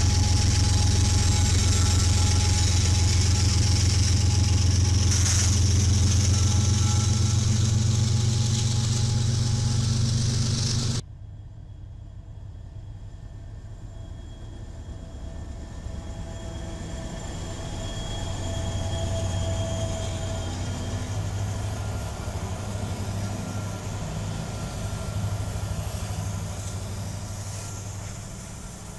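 Diesel freight locomotives passing close by: the engines of a CSX-led train give a loud, steady low drone that cuts off abruptly about 11 seconds in. Then, quieter, Norfolk Southern diesel locomotives approach and pass, their sound building to a peak and easing toward the end as double-stack container cars roll by.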